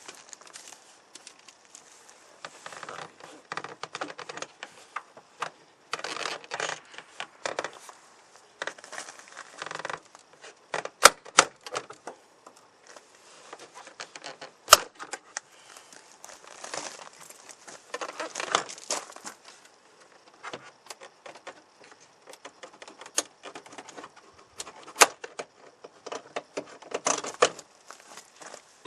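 Hands working on a pickup truck's interior door trim: irregular small clicks, rattles and rustles of plastic and metal parts, with a few sharp, loud clicks scattered through.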